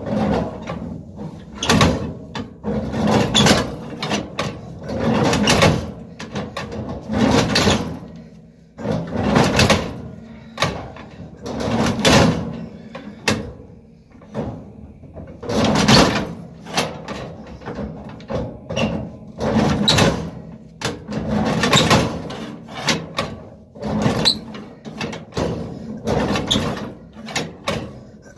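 Ford 493A side-valve engine being turned over by hand with a starting handle, one pull about every two seconds, each a rush of the engine swinging through compression; it does not fire. This is a cold first start with a battery too flat to crank the engine.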